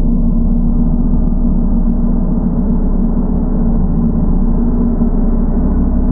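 Gong played continuously: a loud, steady, dense low wash of overlapping tones with no single strike standing out, slowly growing brighter.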